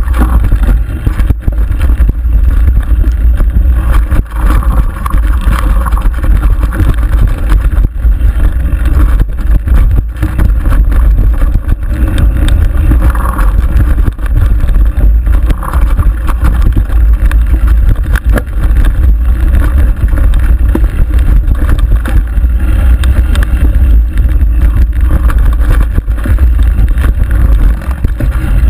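Mountain bike descending rough dirt singletrack: heavy wind rumble on the camera microphone with constant rattling and knocks from the bike over the bumpy trail.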